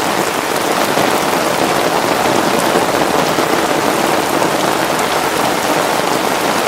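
Heavy hurricane rain falling steadily, a dense hiss with fine drop patter.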